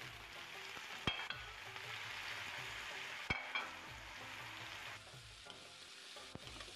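Sliced Jerusalem artichokes sizzling as they hit hot oil in an iron karahi and are stirred. Two sharp clinks against the pan come about a second and about three seconds in. The sizzle eases after about five seconds.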